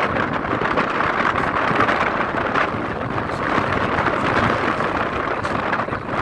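Steady rushing noise of wind buffeting the microphone, at an even level throughout.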